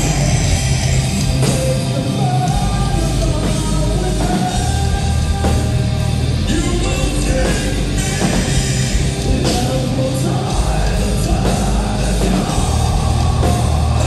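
Live hard rock band playing: distorted electric guitars, bass and drum kit, with a male lead vocalist singing over them.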